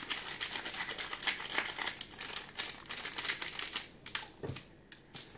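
Paper sachet of baking powder crinkling as it is handled and shaken empty over a mixing bowl: a rapid crackle for about four seconds, then quieter, with one short knock near the end.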